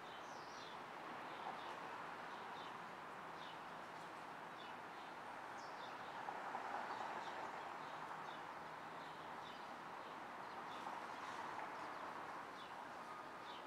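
City street ambience: a steady traffic hum with vehicles passing, swelling about halfway through and again near the end, while small birds chirp over it throughout. Near the end a truck's reverse-warning beeper starts sounding.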